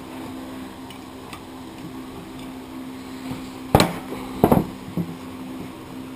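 Sharp metallic knocks and clinks of a hand tool and brake caliper parts handled on a workbench during caliper dismantling: two loud knocks a little under a second apart about four seconds in, then a lighter one, over a steady low hum.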